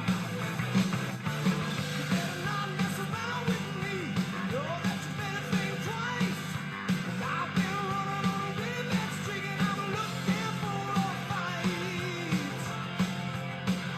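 Rock song playing: a steady beat with guitar and a singing voice.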